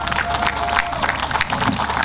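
Crowd applauding with many hands clapping, as a prize-winning band is called. A brief steady high note sounds over the clapping and stops about a second in.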